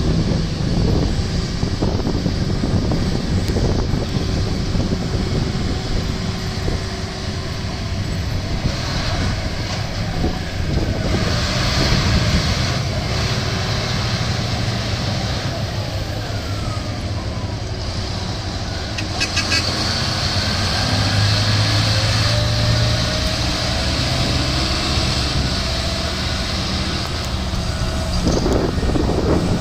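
Heavy diesel mining machinery running: a Komatsu PC1250 excavator working beside a Komatsu HD785 haul truck. The engines drone steadily, with the pitch rising and falling now and then as the machines work.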